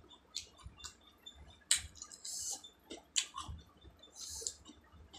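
Close-miked mouth sounds of someone licking and sucking food off their fingers: sharp wet smacks and clicks, with two short hissing slurps, one about two seconds in and one near the end.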